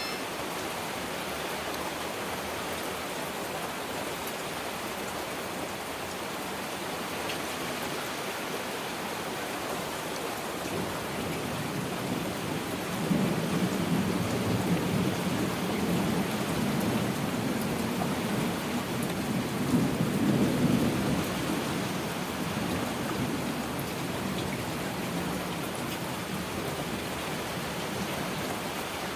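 Heavy rain falling steadily. Partway through, a long low rumble of thunder builds, swells twice, and dies away over about ten seconds.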